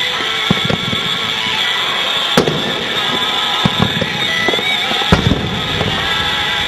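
Fireworks going off: a scatter of sharp pops and booms, the loudest about two and a half seconds in, over a steady background din.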